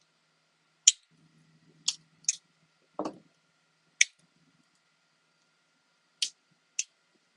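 Victorinox Swiss Army knife tools being opened and snapped shut against their springs: about seven sharp, separate clicks at irregular intervals.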